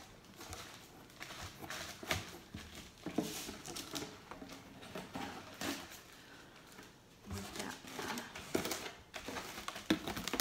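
Crinkling and rustling of a tablecloth being pressed and smoothed against double-sided tape inside a cardboard mailing box, with scattered light taps and scrapes on the cardboard.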